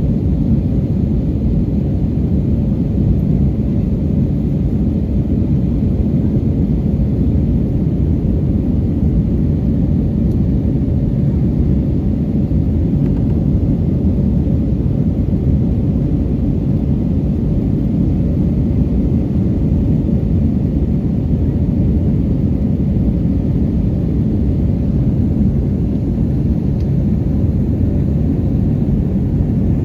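Airbus A321 jet in flight heard from inside the passenger cabin by a window seat: a loud, steady low rumble of engine and airflow noise that stays even throughout.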